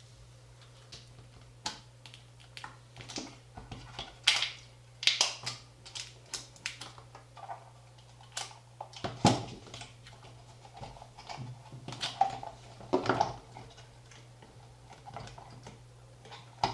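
Irregular clicks, taps and scrapes of a plastic-cased Aneng AN888S bench multimeter being taken apart: screws being undone and case parts and boards handled. A faint steady low hum sits underneath.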